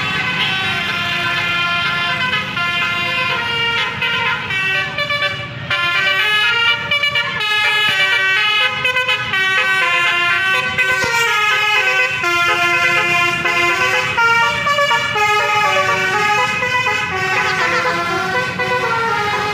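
Bus's 'telolet basuri' musical air horn playing a tune of short notes stepping up and down, over a low engine hum.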